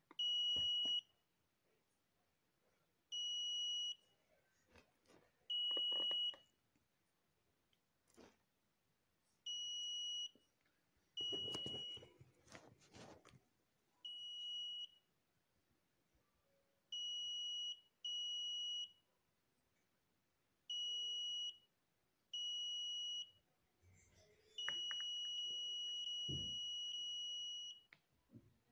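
Buzzer of a homemade PDK4 gold locator beeping in a steady high tone: about ten short beeps of under a second at irregular gaps, then one long beep of about three seconds near the end, each sounding as a gold target is passed near the search coil in an air test. A few handling clicks and rustles come in the middle.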